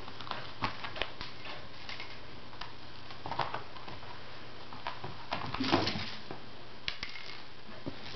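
A kitten's paws scampering and pouncing on a woven rug and hardwood floor while chasing a string: irregular light taps and scuffles, with a louder flurry of scrabbling a little over halfway through.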